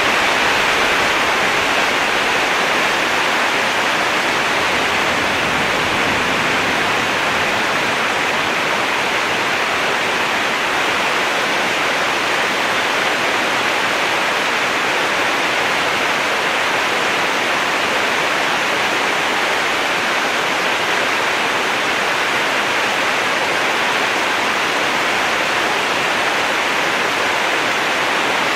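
The Nagara River's water rushing by in a steady, even roar that does not change.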